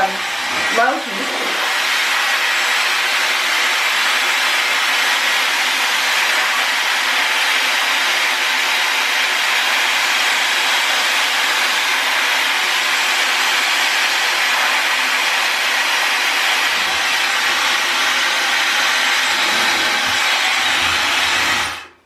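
Dyson Supersonic hair dryer running on low heat, a steady even rush of air blown through hair over a round brush. It shuts off abruptly near the end.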